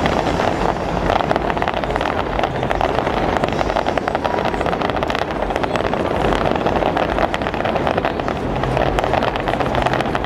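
A fireworks barrage firing without a break: dense rapid crackling and pops over a steady noisy rumble.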